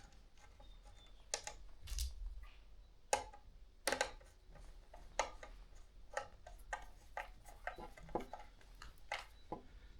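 Scattered light clicks and knocks of ceiling fan parts and hardware being handled during assembly, irregularly spaced, with a soft thump about two seconds in.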